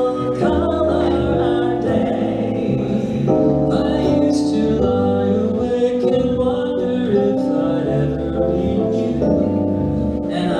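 Song performed live: held chords that change every second or two, with a singing voice over them.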